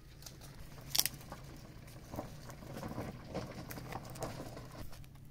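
Dry brushwood being snapped and pulled over stony ground: scattered crackles and taps, with one sharp snap about a second in.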